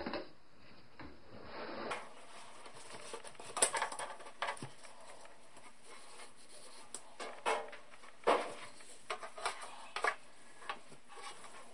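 Bamboo matchstick roll shade handled while new cord is pulled through it: irregular light clicks and rattles of the sticks with rustling of the string, the sharpest clicks about three and a half and eight seconds in.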